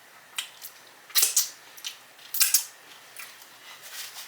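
Close-miked chewing of a steak and cheese sub, with a string of sharp, wet mouth clicks and smacks at irregular intervals.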